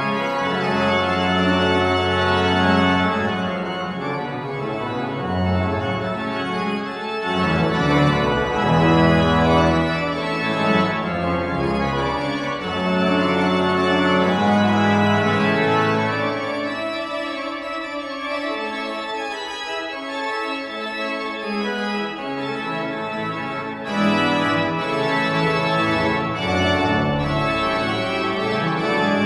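Pipe organ playing the closing voluntary at the end of the service: full sustained chords over a deep pedal bass. The bass drops out for a few seconds past the middle, then the full sound comes back in loudly.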